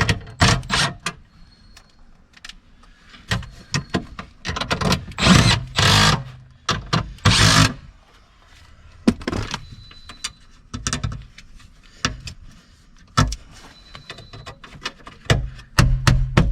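Irregular clanks, knocks and scraping of tools and metal seat parts being handled and fitted, with a couple of longer scrapes of about a second each in the middle.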